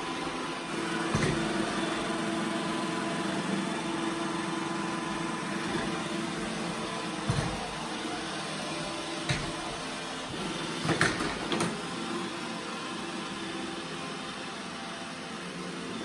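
iRobot Roomba i7+ robot vacuum running across a tiled floor: a steady motor hum, broken by a few sharp clicks and knocks, several of them close together about eleven seconds in.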